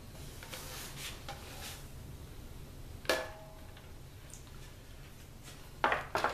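Metal cooking tray being drawn out of the glass tube of a Rand Solar tube cooker: faint scraping, a single ringing clink about three seconds in, then a clatter of the tray and its foil pans being set down near the end.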